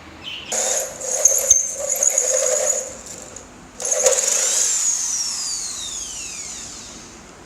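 Angle grinder cutting a stainless steel plate in two bursts, from about half a second in and again from about four seconds. After the second burst it is switched off and its whine falls steadily in pitch as the disc spins down.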